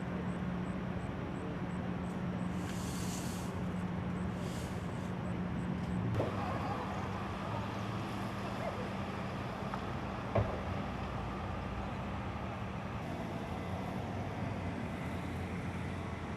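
An engine running steadily, a low hum under a wash of outdoor noise, with two short knocks about six and ten seconds in.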